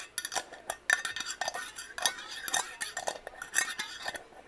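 Quick, irregular tapping and clinking on a glass candle jar: several sharp taps a second, each with a short ring.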